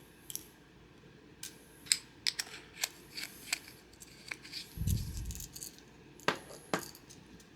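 Small metal clicks and light rattles from Zippo lighter and fuel-canister keychain parts being handled, with a dull low thump about five seconds in.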